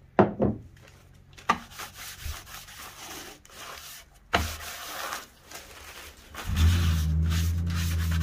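Hard knock as the metal acetone can is set down on the plywood bench. A paper towel wet with acetone is then rubbed over the miter saw's red plastic throat plate, with a couple more light knocks. About six and a half seconds in, a loud steady low hum starts and holds.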